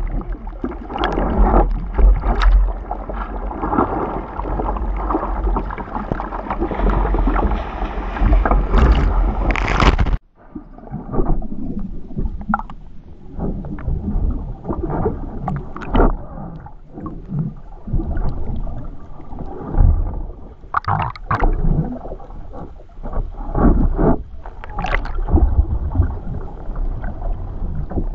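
Seawater rushing and splashing over a surfboard-mounted action camera, with heavy low buffeting. About ten seconds in it cuts off sharply and goes dull and muffled as the camera goes under, with bursts of splashing after that.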